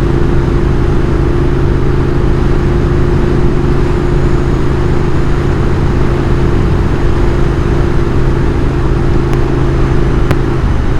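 Moto Guzzi Griso's V-twin engine running steadily at cruising speed. Its pitch dips slightly near the end as the revs change.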